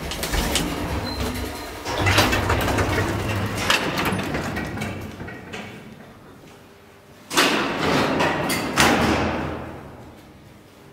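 Automatic sliding doors of an old KMZ passenger lift: the low hum of the travelling cab stops near the start, the doors slide open about two seconds in, and about seven seconds in they slide shut with a loud clatter that trails off over the next couple of seconds.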